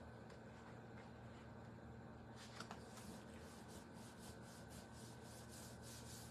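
Faint rustling and soft taps of cardstock being pressed and smoothed down by hand onto a glued card layer, over a low steady hum of room tone.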